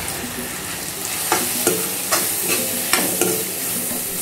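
Metal spatula stirring and scraping spices into onion-tomato masala frying in mustard oil in a metal kadai, over a steady sizzle. From about a second in, the spatula scrapes and knocks against the pan about twice a second.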